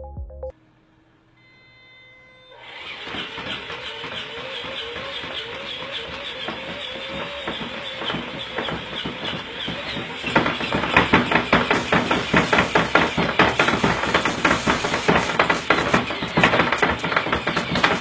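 Motorized back-patting prototype starting up: a spinning mechanical arm with a plastic hand slaps a baby doll's back over and over above a motor whir. About ten seconds in, the slaps turn louder and come faster.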